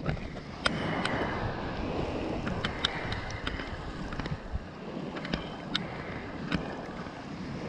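Wind buffeting the microphone over the wash of small waves on the shore, with a few scattered sharp clicks.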